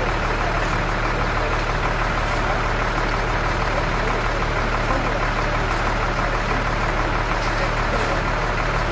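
An engine running steadily with a constant low hum, under a dense, unchanging noise.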